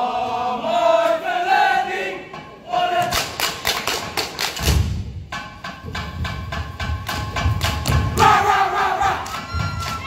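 A Samoan group dance: a leader's shouted chant, then the dancers' rapid rhythmic claps and body slaps with heavy low thuds, and group shouts near the end.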